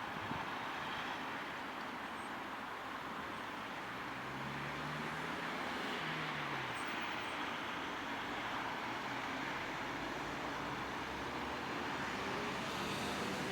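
Steady distant vehicle noise. A low engine hum rises and then falls in pitch about four to six seconds in, and the noise grows slightly louder near the end.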